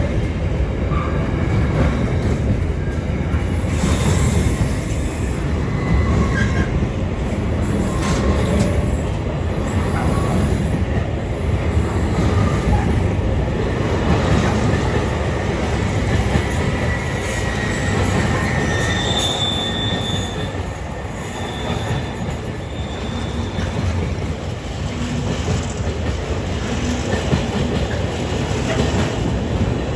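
A train running on the rails through the station: a steady rumble of wheels on track, with a few high-pitched wheel squeals past the middle.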